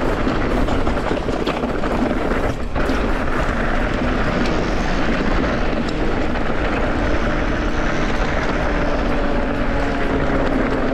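Mountain bike rolling fast downhill on a gravelly dirt track: wind buffeting the microphone and knobby tyres rattling over stones, with a low steady hum throughout.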